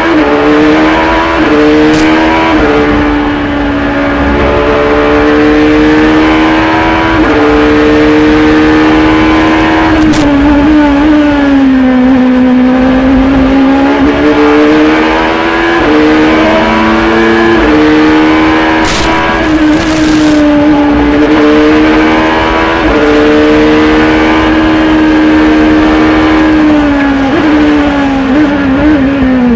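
Acura LMP2 prototype's V8 engine at racing speed, heard from the cockpit. It climbs through each gear with a sharp drop in pitch at every upshift, sags lower for a few seconds about twelve seconds in, and begins falling away near the end as the car slows.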